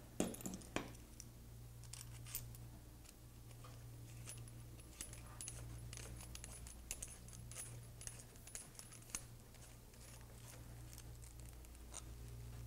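Faint small metallic clicks and taps of a soldering iron tip being changed and handled with a small metal tool, a few louder just after the start, over a steady low hum.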